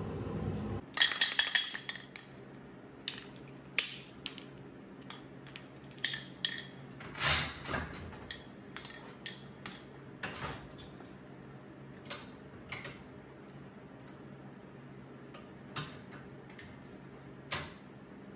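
A power tool's motor hum stops just under a second in. A burst of sharp metal clinks follows, then scattered single clinks and knocks from a steel bench-vise handle and tools being handled on a workbench.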